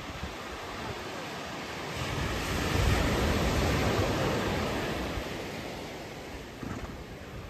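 Ocean surf: a wave breaking and washing up the beach, swelling about two seconds in, loudest around three seconds, then fading away.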